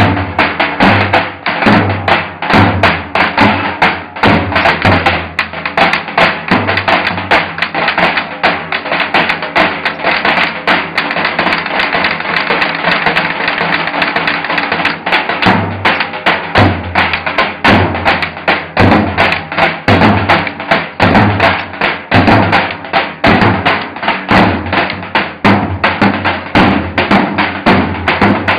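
Three davul bass drums beaten together with heavy beaters and thin sticks, in a fast, dense dance rhythm of booming strokes and sharp rim-and-stick taps. A steady pitched accompaniment runs beneath.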